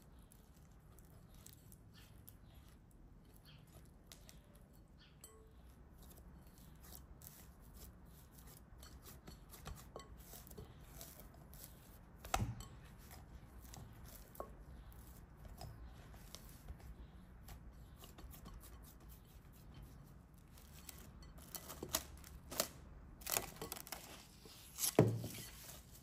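Hands kneading soft bread dough in a glass mixing bowl: faint squishing and light clicks against the glass, with one sharper knock about halfway. Near the end, plastic cling film crinkles and is pressed over the bowl, with a louder thump.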